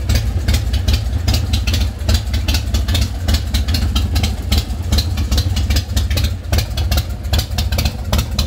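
S&S 117 cubic inch V-twin of a 2006 Big Dog Ridgeback motorcycle idling, loud and steady with a regular exhaust beat.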